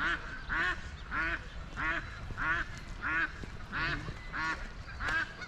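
A waterfowl calling over and over in a steady rhythm: about nine short nasal calls, one roughly every two-thirds of a second.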